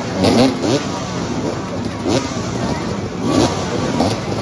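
Motoball motorcycles idling, their engines blipped several times in short revs that rise and fall.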